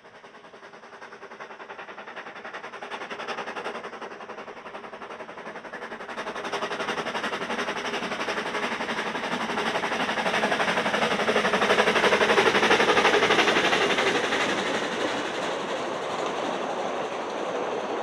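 Avonside 0-4-0T narrow-gauge steam locomotive Marchlyn working a passenger train, its exhaust chuffing rapidly as it approaches, growing steadily louder until it is loudest about twelve seconds in. Its coaches then roll past, the sound easing only slightly.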